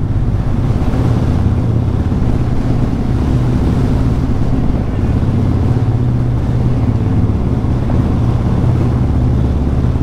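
Motorcycle engine running steadily under way inside a road tunnel, its exhaust drone booming off the tunnel walls.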